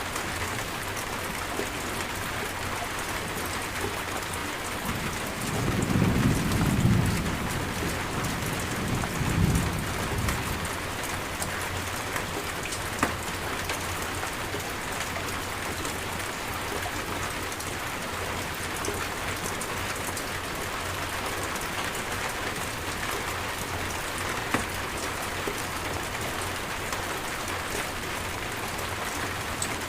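Steady heavy rain falling, with a low rumble of thunder swelling about five seconds in and a second, shorter rumble a few seconds later.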